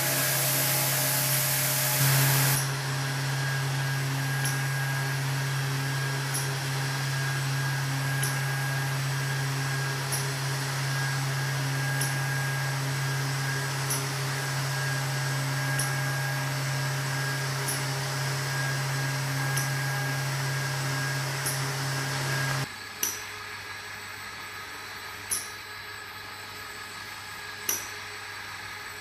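Gottschild HBS 2500 automatic sanding and polishing machine working a lacquered MDF panel with its random orbital sanding head. A loud hiss cuts off about two seconds in, then a steady motor hum runs with a faint tick every couple of seconds. Near the end the hum stops and it goes quieter, with a sharper knock every two seconds or so.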